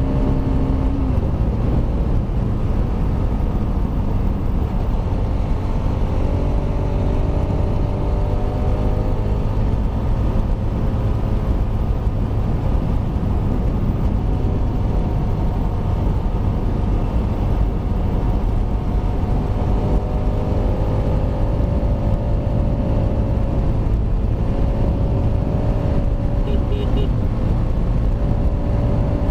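Kawasaki Rouser RS200's single-cylinder engine running steadily while riding, with its canister removed; its pitch drifts slowly up and down with the throttle. Heavy wind rumble on the microphone underneath.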